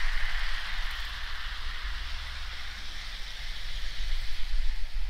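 Steady hiss from a Hornby Live Steam OO gauge A4 model steam locomotive running along the track, over a low rumble of wind on the microphone.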